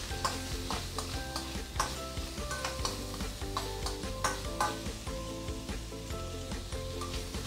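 Sliced pork belly sizzling in a stainless steel wok, stirred with a spatula that scrapes and clicks against the pan again and again, over background music.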